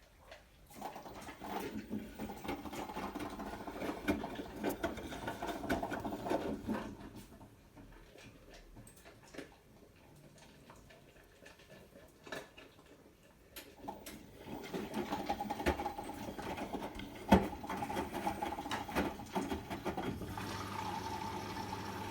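Hotpoint Smart Tech washing machine running, with two spells of several seconds of drum-motor noise full of clicks and rattles and a quieter pause between them. Near the end a steady hum sets in. The owner fears these noises mean the motor is dying.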